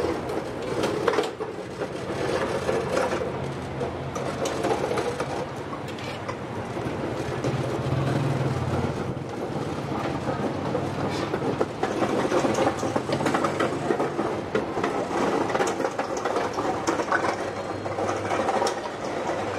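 Buttered buns toasting on a flat-top griddle, sizzling, with repeated clicks and scrapes of a metal spatula and masher on the steel, over a steady low mechanical hum.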